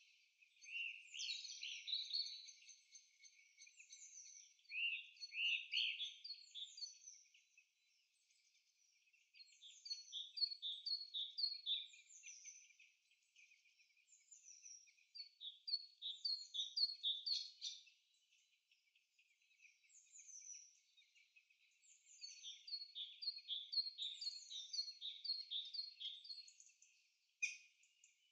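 Songbirds singing in bouts of quick, high, repeated chirping notes, with short lulls every few seconds.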